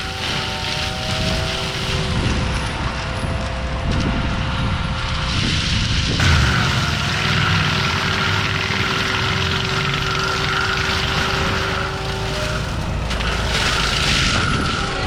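Forestry mulcher on an ASV RT-120F compact track loader running hard, a steady engine rumble under a sustained high whine from the cutter drum. The texture shifts every few seconds as the head grinds into small pine and gum trees.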